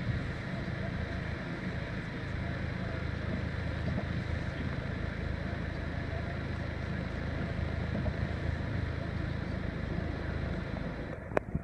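Iveco Daily 35S12 van's 2.3 HPI four-cylinder turbodiesel idling steadily, heard from inside the cab. There is a sharp click near the end.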